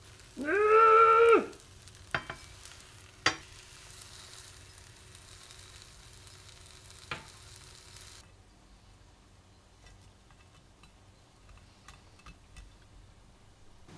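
Egg omelette sizzling in a nonstick frying pan as it is rolled with a silicone spatula. A loud squeak about half a second in lasts roughly a second, and a few sharp taps of the utensils on the pan follow. The sizzle cuts off about eight seconds in, leaving faint clicks as the omelette is pressed in a bamboo sushi mat.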